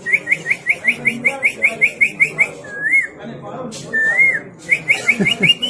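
Human whistling imitating a canary's song: a run of rapid high chirps, about six a second, broken by two short warbling notes, then more quick chirps near the end.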